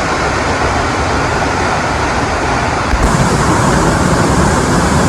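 Waterfall rushing loudly and steadily, growing a little louder and brighter about three seconds in.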